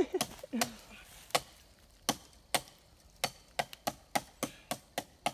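Dry twigs and bark cracking and snapping under a person climbing through a tree: a series of short, sharp clicks, irregularly spaced and coming faster over the last two seconds.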